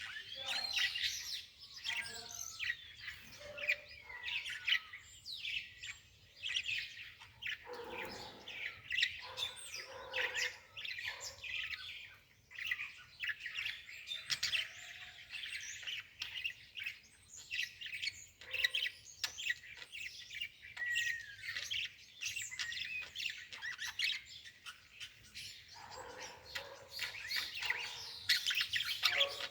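Small birds chirping and twittering continuously, many short, rapid, high chirps overlapping.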